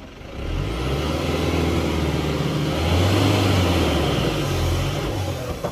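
Diesel engine of a heavily loaded Mitsubishi Colt Diesel truck revving hard under load: the revs climb about half a second in, hold high, and ease off near the end. The truck failed the steep climb and is being worked back down the grade.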